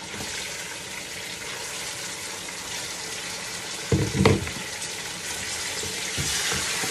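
Lamb pieces sizzling as they fry in hot oil and browned ginger-garlic paste in a pot, a steady frying hiss that grows louder near the end as the meat is stirred. A dull knock about four seconds in, as the emptied plastic colander is set down.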